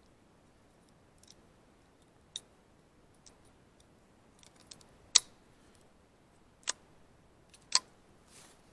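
Sharp metallic clicks of a .22 LR rifle being loaded by hand: cartridges pressed into the magazine and the magazine worked into the rifle. They come singly and irregularly, about one a second, the loudest about halfway through.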